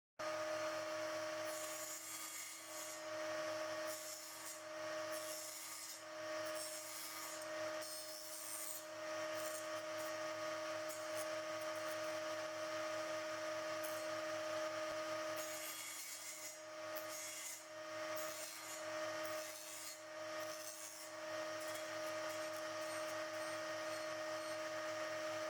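A power tool working pine: its motor runs at a steady pitch throughout, while two spells of rhythmic rubbing strokes against the wood come through on top.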